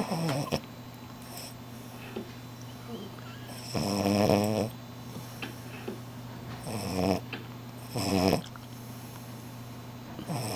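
French Bulldog snoring in her sleep: about five pitched snores at uneven intervals, the loudest about four seconds in, over a steady low hum.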